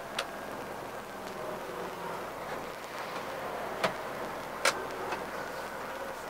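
Cab noise of a Scania R450 truck: the engine running steadily under a hiss of road and tyre noise while it slows toward a roundabout, with a few sharp clicks near the start and around four and five seconds in.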